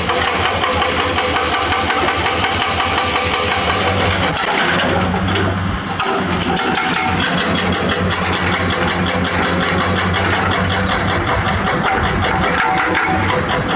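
Komatsu PC200 excavator's diesel engine running under load, with the rapid rhythmic pounding of a hydraulic rock breaker chiselling limestone. About four seconds in, the engine's low drone becomes steadier and stronger.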